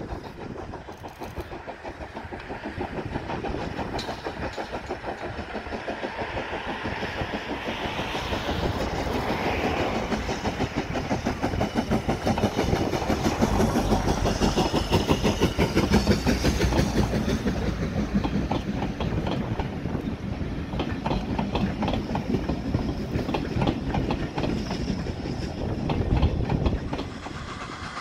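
Steam locomotive chuffing in rapid, even exhaust beats as it hauls its coaches past. The beats grow louder as the train approaches, peak about halfway through as it passes, then ease off.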